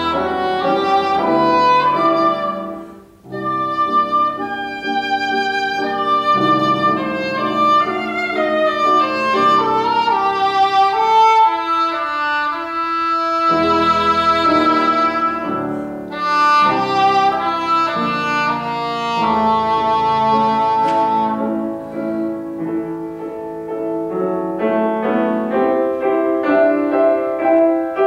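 English horn playing a lyrical classical melody with grand piano accompaniment, with a brief pause about three seconds in. Near the end the English horn stops and the piano carries on alone.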